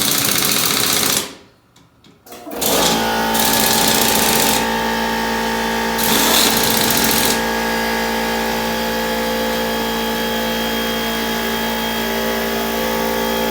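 A short loud burst from a machine, then after a brief pause a motor-driven machine runs steadily for about eleven seconds, louder twice in its first few seconds, and cuts off suddenly at the end.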